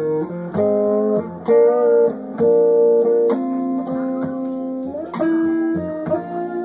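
Les Paul-style electric guitar playing slow blues lead: held notes and double-stops ringing out, with a wavering vibrato note and a string bent up in pitch about five seconds in.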